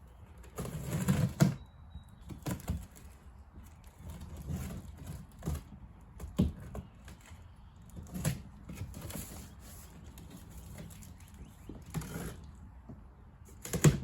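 Irregular knocks, thumps and rustling of parts and packaging being handled during unpacking, with the loudest thumps about a second in and at the very end.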